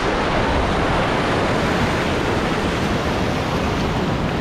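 Ocean surf washing and foaming over lava rocks: a steady rush of whitewater.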